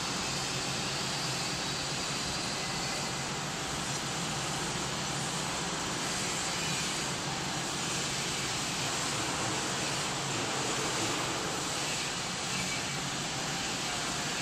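BOPP film coating machine running: a steady, even whirring noise with a low hum underneath.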